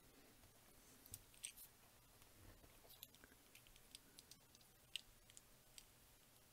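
Faint, irregular clicks of small plastic Sembo Blocks building bricks being handled while the partly built model is turned around.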